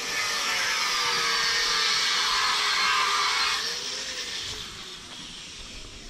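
Angle grinder working. Its grinding noise drops away about three and a half seconds in, leaving the motor's whine to fade out.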